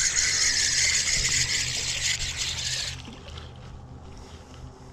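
Creek water running with a steady hiss, which drops away suddenly about three seconds in, leaving a quieter background.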